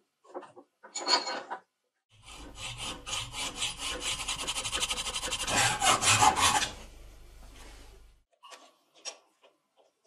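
Small hacksaw cutting through a steel rod held in a vise, with fast, even back-and-forth strokes for about four seconds that grow louder before stopping. Two short handling noises come before the sawing.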